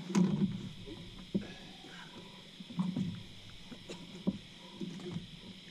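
Scattered knocks and bumps of people shifting and handling a catfish in a small inflatable boat, with the loudest knock right at the start, over a steady high-pitched hum.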